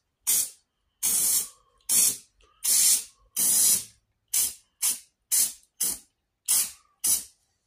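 Aerosol can of spray-on bed liner coating hissing in about eleven short bursts. The first few bursts are about half a second each and the later ones are quicker, as a rust-protective coat goes onto metal clamps.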